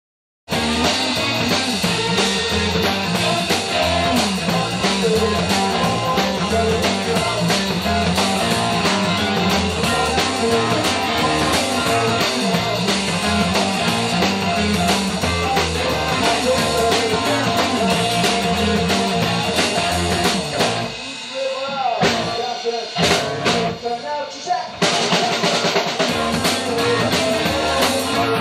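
Rock music with drum kit and electric guitar, starting abruptly just after the beginning. About 21 seconds in it thins out to a sparser break for about four seconds, then the full band comes back in.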